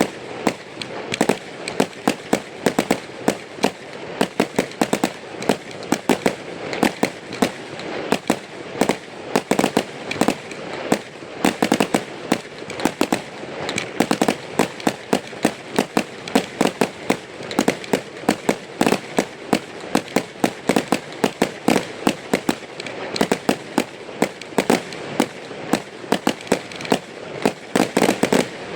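Aerial fireworks going off in a dense, continuous barrage of sharp bangs, many a second, over a constant crackle.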